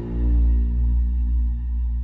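Cinematic 'creepy horn' sound effect: a deep, sustained horn-like drone of many steady low tones, holding with slight swells.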